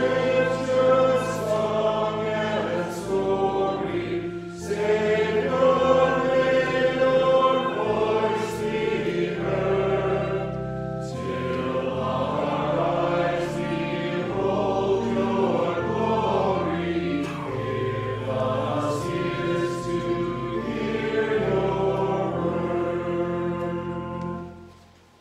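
A group singing a hymn in worship with accompaniment under the voices; the singing and accompaniment stop together near the end.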